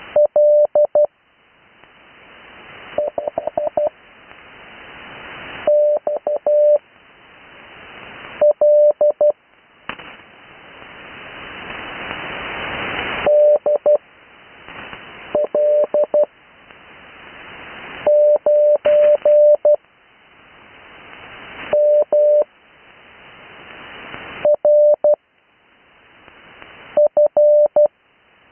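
Morse code (CW) tone on the 80 m amateur band, received through a radio: about ten characters keyed as short groups of dots and dashes at character speed, with long gaps between them (Farnsworth spacing). Band hiss swells up in each gap and drops away when the tone keys on.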